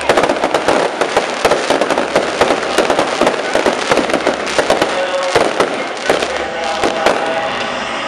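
Aerial fireworks bursting and crackling in quick succession: a dense, unbroken run of sharp pops and bangs.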